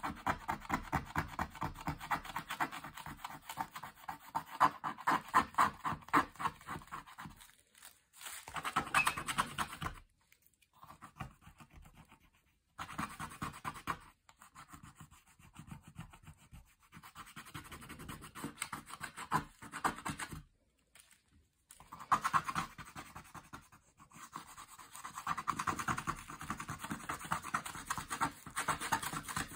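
Scratch-art coating being scraped off a card page with a small handheld tool, in rapid back-and-forth strokes that pause briefly a few times.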